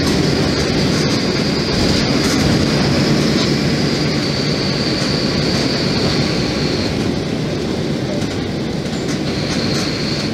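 Mercedes-Benz OF-1724 Bluetec 5 bus cruising, heard from inside the cabin: a steady engine drone with road rumble and rattling. A high steady whine drops out about seven seconds in and comes back near the end.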